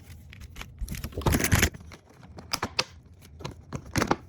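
Two DDR4 RAM sticks being popped out of their retail packaging: a run of short clicks and knocks from the packaging being handled, thickest around the middle, with a few single clicks near the end.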